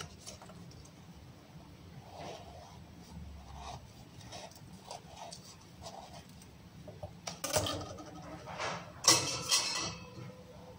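Kitchen handling sounds as an avocado is cut with a knife: quiet scrapes and taps, then a few louder knocks and clatters on the counter in the second half.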